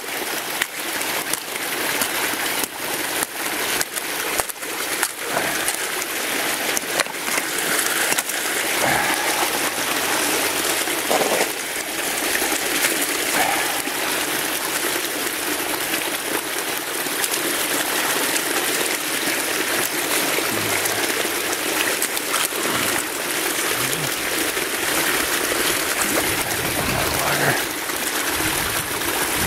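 Icy water sloshing and splashing as a gloved arm works in a hole broken through the ice, with chunks of ice clinking and knocking, most often in the first several seconds.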